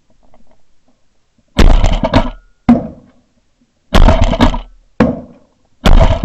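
Shotgun shots fired at incoming pigeons: five loud blasts, mostly in pairs about a second apart, each with a short ringing tail.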